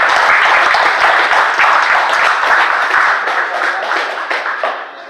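Small crowd applauding, many hands clapping at once, the clapping dying away over the last second or so.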